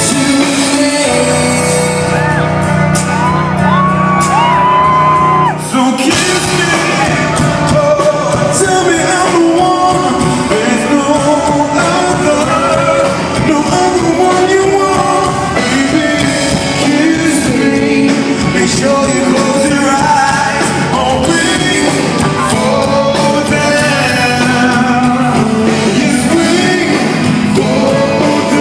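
Live pop music: a male vocal group singing over band accompaniment, heard loud in a large hall.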